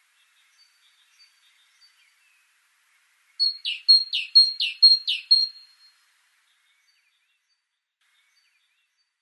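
Great tit singing: a quick run of about five two-note phrases, each a high note followed by a falling one, with a few faint high notes before it.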